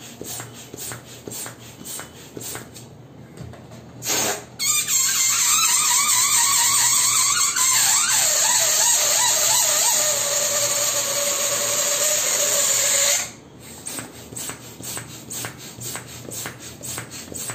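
Air escaping from an inflated latex balloon through its pinched, stretched neck: a loud squeal for about nine seconds over a hiss of rushing air, its wavering pitch dropping about halfway through, cut off suddenly. Before and after it, rhythmic rubbing squeaks of hands on the balloons.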